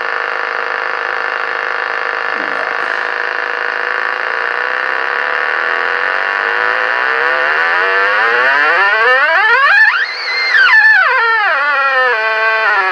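Pulse train from a home-built impulse-noise generator played through a radio receiver's speaker with the noise blanker off: a buzz over background hiss. The buzz's pitch glides up steadily to a peak about ten seconds in, then steps back down as the pulse-rate trimmer is turned.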